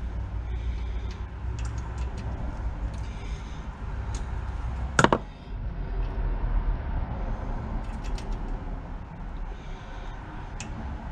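Hand tools and engine parts being handled during an engine teardown: scattered light clicks and knocks, with one loud sharp knock about five seconds in, over a steady low hum.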